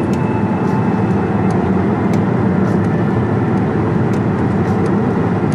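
Steady road and engine noise heard inside a moving car's cabin, with a few faint, scattered light ticks.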